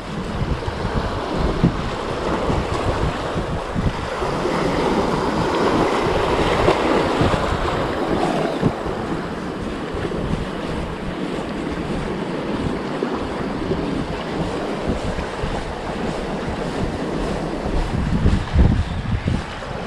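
Sea waves washing against shoreline rocks, with wind buffeting the microphone. The surf swells louder for a few seconds around a third of the way in.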